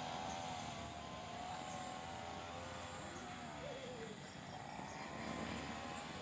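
A small engine running steadily, its pitch dipping a little past halfway and then rising again.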